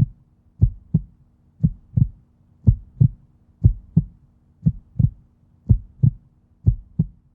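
Heartbeat sound effect: paired low thumps, about one pair a second, over a faint steady hum.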